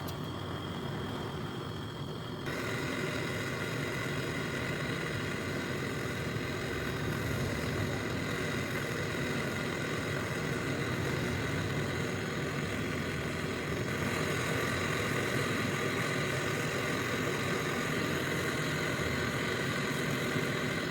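A steady mechanical running noise with a constant hum, which changes character about two and a half seconds in and again around fourteen seconds.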